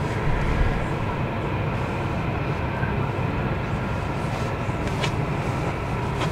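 Commuter train running at speed, heard from inside the passenger car: a steady rumble of wheels on rails with running noise. A single sharp click comes about five seconds in, and another near the end.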